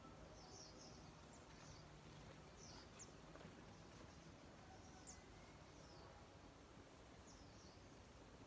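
Faint outdoor ambience with scattered short, high bird chirps every second or two, over a low steady hiss.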